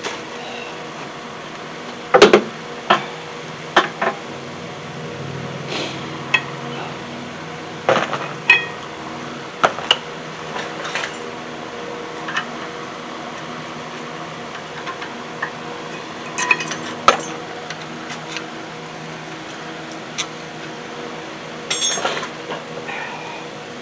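Scattered metal clinks and knocks from a rear disc brake being taken apart: the caliper is lifted off and the pads and their clips are pulled from the caliper bracket. The loudest clack comes about two seconds in, over a steady background hum.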